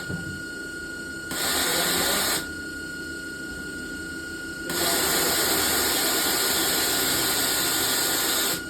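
CNC vertical machining centre running a slot-milling program: two sharp-edged bursts of hissing machining noise, a short one about a second in and a long one from about halfway to near the end, as the tool feeds through the workpiece. A steady high whine from the machine runs underneath.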